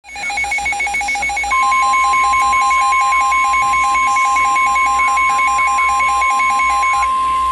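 Emergency alert tones for a severe thunderstorm warning: fast beeping that alternates between two pitches, joined about a second and a half in by a steady, loud single tone. The beeping stops near the end while the steady tone holds.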